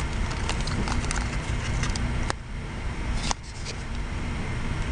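Handling noise of plastic blister packs of car air fresheners on metal pegboard hooks: a few sharp clicks, the loudest about two and a half seconds in and another about a second later, over a steady low rumble.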